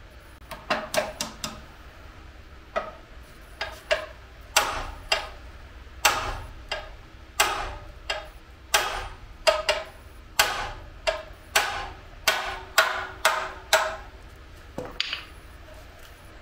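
A hammer repeatedly striking the handle of an adjustable wrench: sharp metallic clanks with a short ring, about one or two a second with brief pauses, knocking loose a tight flare nut on an air compressor's discharge pipe.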